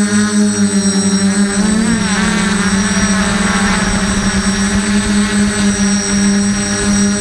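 DJI F450 quadcopter's electric motors and propellers running with a steady, loud whine, recorded from the onboard camera. The pitch dips and wavers briefly about two seconds in as the throttle changes, then holds steady.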